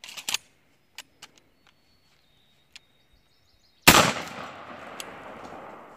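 A couple of sharp clicks near the start. About four seconds in comes a single loud blast from a Maverick 88 12-gauge pump shotgun, whose report rolls away in a long fading echo.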